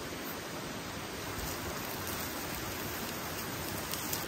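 Thick slices of pork neck sizzling on hot elvan stones in a wire grill basket over a wood fire: a steady, even hiss.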